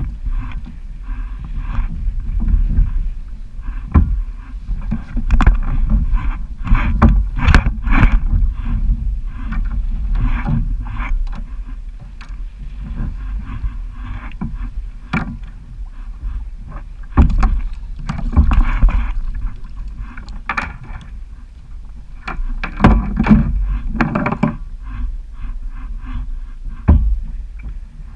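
Water splashing and knocking against a fishing kayak on choppy, wind-blown water, in irregular short hits over a steady low rumble.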